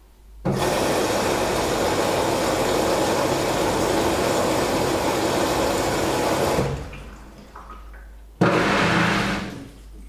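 Beko WKB 61022 washing machine taking in water at the start of its wash cycle: the inlet valve opens with a sudden rush of water that runs steadily for about six seconds and stops, then opens again for about a second near the end.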